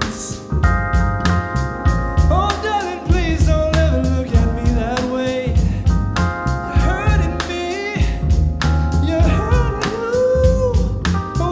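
Live jazz-soul trio of keyboard, upright acoustic bass and drum kit playing a steady groove, with regular cymbal and drum strokes over deep bass notes. Wordless sung lines glide over the band in the middle of the passage.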